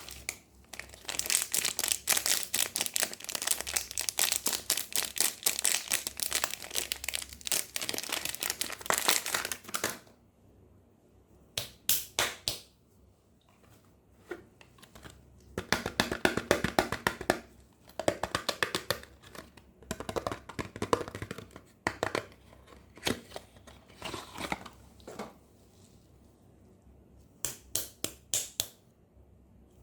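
Soap packaging being unwrapped by hand: the wrapping crinkles and tears, in one long stretch over the first ten seconds, then in shorter bursts with pauses between.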